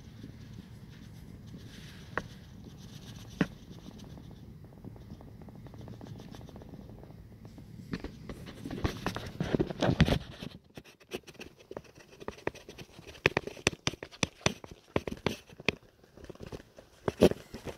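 Handling noise on a phone's microphone as it is held at a window: a low background rumble with occasional clicks, then, from a little past halfway, a run of sharp irregular clicks, taps and scrapes.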